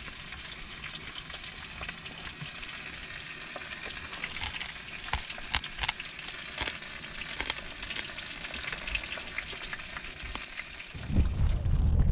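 Fish frying in a pan: a steady sizzle with scattered sharp crackles. About a second before the end it gives way to wind buffeting the microphone.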